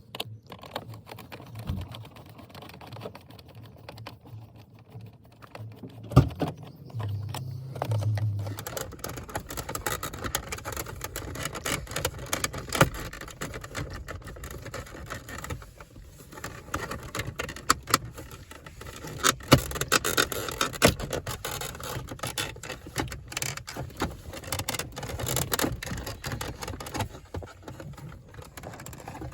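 Hand work on a car's interior center console and shifter surround: a long run of small plastic clicks, rattles and knocks, with a few sharper knocks of trim or tools.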